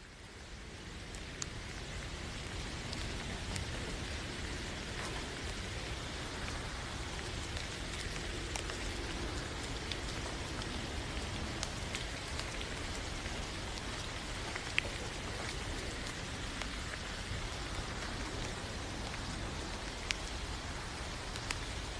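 Steady rain falling, with scattered sharp drip ticks, fading in over the first couple of seconds.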